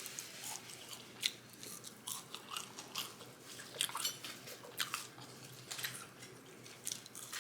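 A person chewing and biting food in close-up, with irregular clicks from the mouth and teeth.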